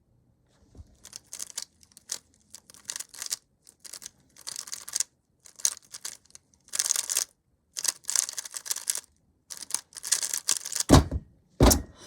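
A Rubik's Cube being turned fast in a speedsolve, rapid clacking in bursts with short pauses between. Two low thumps come near the end.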